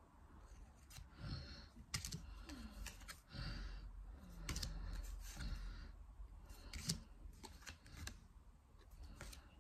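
Pokémon trading cards being handled and flipped through by hand: scattered light clicks and a few short soft rustles.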